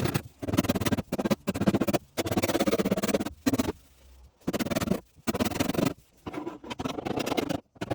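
Bursts of rapid tapping on the steel wing as the dent is worked out, each burst a fraction of a second to about a second long, with short pauses between.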